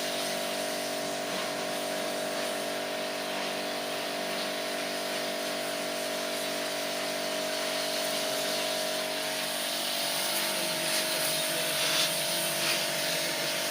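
Electric pressure washer used for air-conditioner servicing, running with a steady motor hum and hiss. The hum thins about nine seconds in, and the hiss swells with a few surges near the end.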